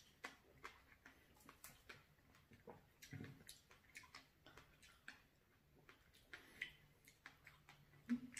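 Near silence with faint, irregular small clicks and smacks, a few a second: the mouth sounds of people chewing fresh strawberries.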